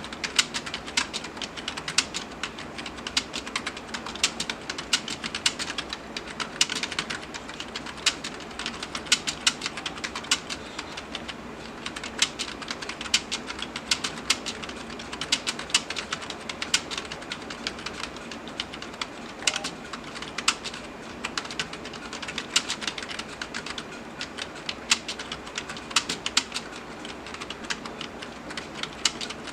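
Someone typing continuously on a keyboard, a quick, uneven run of key clicks several a second without a real pause.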